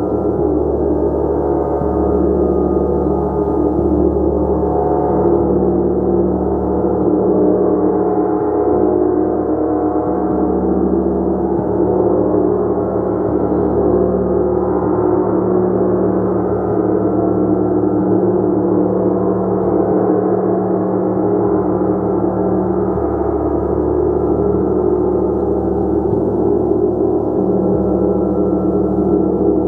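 Gong played continuously: a dense, even wash of many overlapping low and middle tones, with no single stroke standing out.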